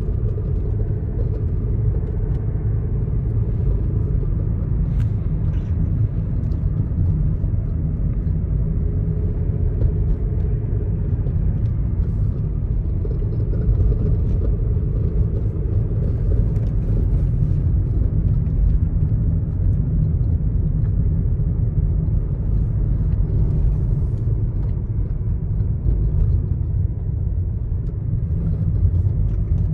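A car being driven, heard from inside the cabin: a steady low rumble of engine and road noise.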